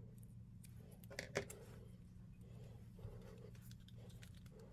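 Paper backing being peeled and handled off a small piece of adhesive grip tape, faint rustling with a short sharp crackle about a second in and a smaller click near three seconds. A low steady hum runs underneath.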